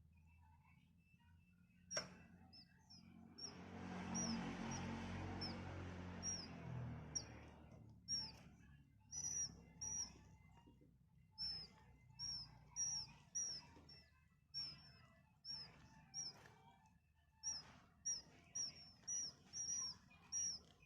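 Oriental magpie-robin chicks giving short, high chirps over and over, about two a second through the second half. A click comes about two seconds in, and a few seconds of hiss-like noise follow.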